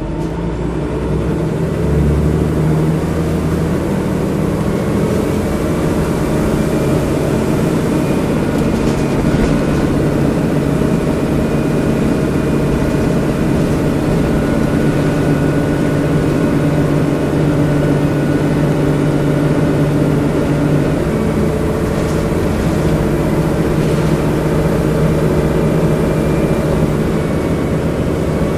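Diesel bus engine heard from the rear seats inside the saloon, growing louder over the first two seconds as the bus pulls away and then running steadily under load.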